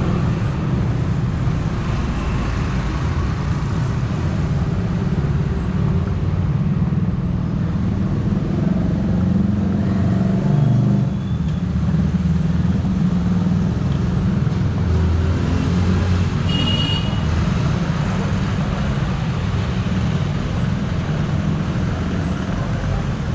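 Street traffic: motor vehicles running past with a steady low engine rumble. A short high-pitched toot sounds about two-thirds of the way through.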